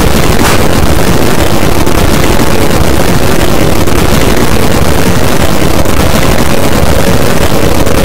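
Loud, steady rush of wind buffeting the microphone, with a heavy low rumble underneath and a faint steady hum in the second half. The uploader gives it as the wind of an approaching tornado, too strong for the microphone to record cleanly.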